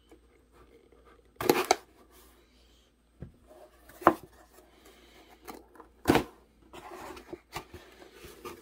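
A cardboard shipping box being opened: a folding knife slits the packing tape, and the box is knocked and shifted on a wooden table, giving several sharp knocks, the loudest about a second and a half in and about six seconds in. Cardboard rustling near the end as the flaps are pulled open.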